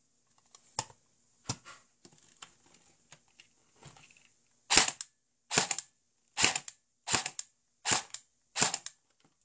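Airsoft gun with an electric bolt stop being worked to check it after a sensor replacement. There are two sharp clicks and some lighter mechanical ticks, then six loud snapping shots, each a quick cluster of clicks, about three-quarters of a second apart.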